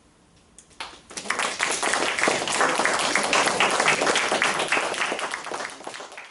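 Audience applauding, starting about a second in after a short hush and tailing off near the end.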